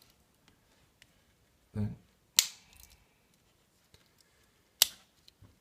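Two sharp clicks, about two and a half seconds apart, of the tools of a Victorinox Spartan Swiss Army knife snapping home against their backsprings.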